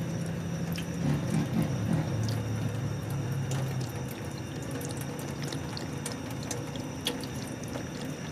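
Water running in a steady stream, with scattered small clicks throughout.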